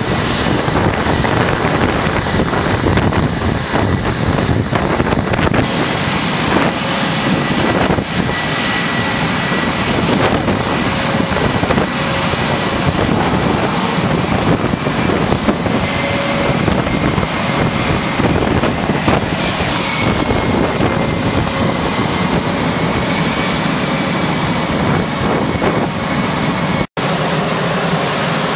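Jet aircraft engines running on a carrier flight deck: loud, steady jet noise with a high turbine whine that shifts slightly in pitch now and then. The noise breaks off for an instant near the end.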